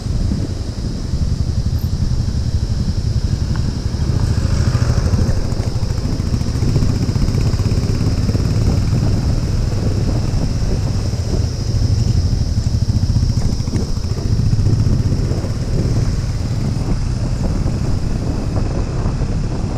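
Suzuki Gixxer 155's single-cylinder engine running steadily at low road speed, heard from the rider's seat.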